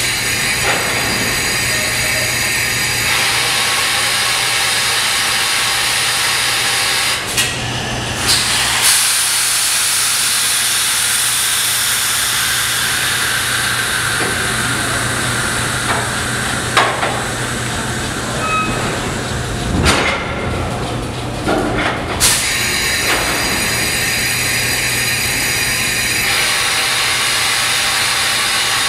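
Vintage Arnine subway train standing at the platform, its air brake system giving a steady loud hiss over a low hum. The hiss breaks off briefly twice. It comes during trouble with the brakes as the train tries to depart.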